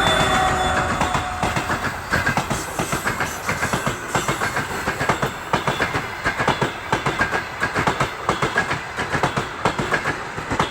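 Passenger train coaches rolling past, their wheels clattering in a quick, uneven rhythm over the rail joints. In the first second or so, the whistle of the TEP70 diesel locomotive's turbochargers fades away.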